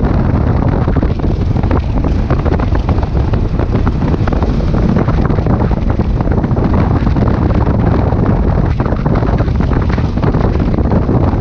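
Wind buffeting the microphone of a camera on a moving Honda CB400 Super Bol d'Or motorcycle in a strong wind. It is a steady, heavy rushing noise, thickest in the low end, that covers the engine.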